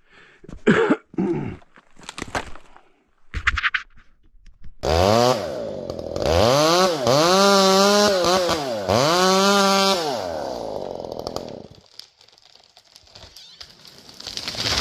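Ported two-stroke chainsaw revved up and down three times, then dropping back to idle and shutting off about twelve seconds in. Short handling knocks come before it starts, and a loud thump comes at the very end.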